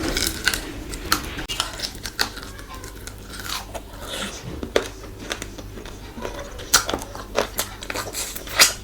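Close-miked eating of a rice-and-curry meal: chewing, biting and crunching, with irregular sharp clicks and wet mouth sounds. The loudest crunch comes near the end.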